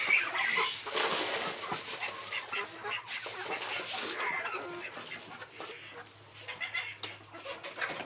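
Chickens clucking while mixed grain is poured from a plastic tub into their feeder: a rushing rattle of grain about a second in and again near four seconds, with scattered short taps.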